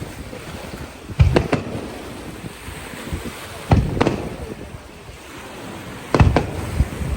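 Aerial firework shells bursting with booms that come in quick pairs, three times about two and a half seconds apart, each followed by a lingering rumble.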